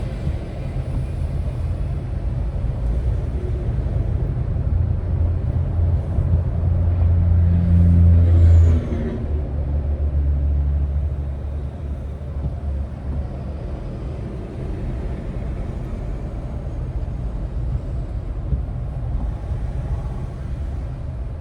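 Heavy truck diesel engine pulling in slow traffic, its deep drone growing louder and then dropping off sharply about nine seconds in to a lower pitch, as at a gear change.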